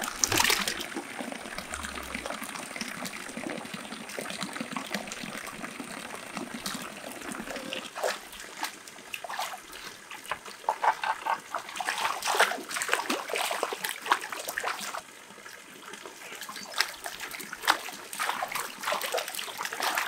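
Water trickling and splashing irregularly as live fish are scooped and sorted in water, with frequent small splashes and drips that come thickest in the middle and near the end.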